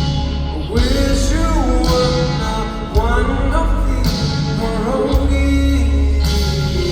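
Live rock-pop band playing with heavy bass and drums. A male singer comes in about a second in and carries a sung melody over it.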